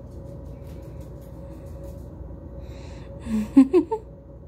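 Steady low background hum with a faint thin tone and a few faint ticks. A little over three seconds in, a woman's voice briefly coos in a high, rising pitch.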